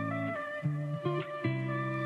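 Instrumental background music: plucked, guitar-like notes over held bass notes that change every half second or so.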